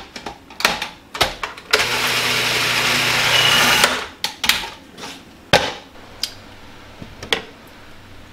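Cuisinart food processor: a few plastic clicks as the lid and pusher are fitted, then its motor runs for about two seconds, chopping pesto in the bowl, and stops suddenly. More sharp plastic clicks and knocks follow as the lid is handled.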